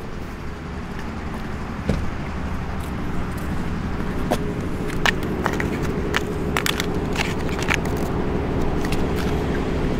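Steady background rumble like nearby traffic, with a few sharp clicks and cracks scattered through it.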